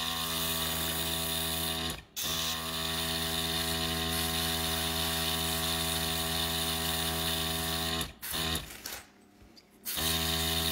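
Small airbrush compressor running with a steady hum and hiss, supplying an airbrush used for nail painting. It cuts out for a moment about two seconds in, and again for about two seconds near the end before starting up again.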